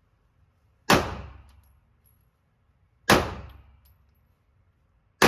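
Three gunshots about two seconds apart, each sharp crack trailing off in a ringing echo.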